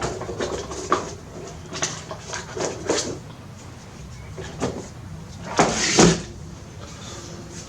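Rummaging: scattered knocks, clicks and rattles of small objects being moved and set down while searching for a roll of solder wire, with a louder clatter about six seconds in.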